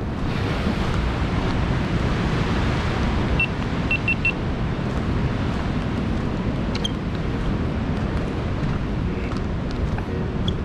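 Steady wind noise on the microphone over the wash of ocean surf, with four short high chirps about four seconds in.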